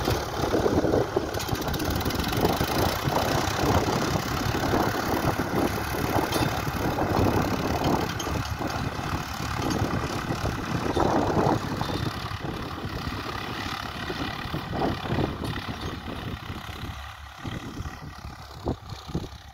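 Diesel engines of two Swaraj tractors, an 855 and a 963, running under load as they pull disc ploughs through the soil. The sound is steady and grows fainter over the last few seconds.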